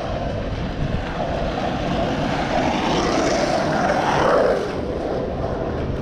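Engine noise of a passing vehicle, swelling to its loudest about four seconds in and then falling away quickly, over steady outdoor noise.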